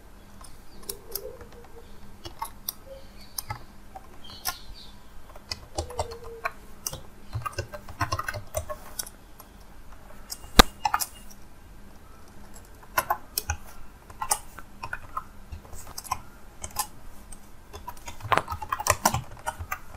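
Typing on a computer keyboard: irregular key clicks in short runs, with one sharper, louder click about ten and a half seconds in.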